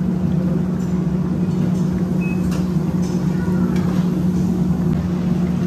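Steady mechanical drone with a constant low hum, the running noise of a commercial kitchen's exhaust hood fan over a gas range.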